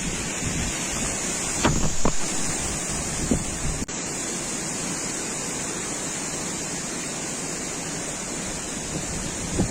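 Steady rushing of wind buffeting the microphone, with a few stronger gusts about two seconds in. A brief click and dropout comes just before four seconds in.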